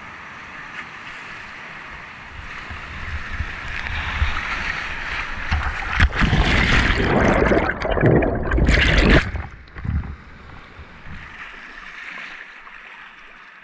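Whitewater rushing at a river weir, growing louder as the kayak nears the drop. From about six to nine seconds, loud churning splashes as water crashes over the kayak and the camera. It cuts off suddenly to the quieter burble of flowing river.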